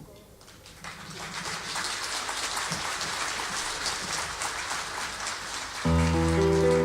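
A steady rain-like hiss rises in about a second in and holds, then sustained keyboard chords of the song's intro come in near the end.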